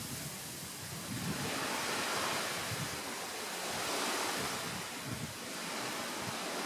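Wind gusting through the leaves of a tree: a rushing hiss that swells and eases every couple of seconds.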